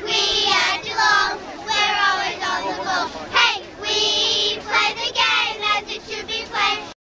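A group of young girls singing a football supporters' song together in high voices, cutting off abruptly near the end.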